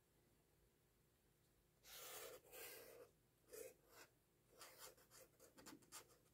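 Felt-tip marker drawing on notebook paper. After a short pause there is one long stroke of about a second, then two short strokes and a quick run of small strokes near the end.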